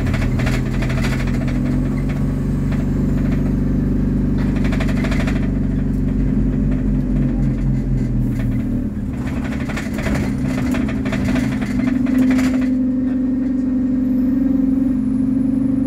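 A Scania N230UD OmniCity double-decker bus's diesel engine running, heard from inside on the upper deck as the bus drives. Rattling and road noise come and go in bursts over the steady engine note.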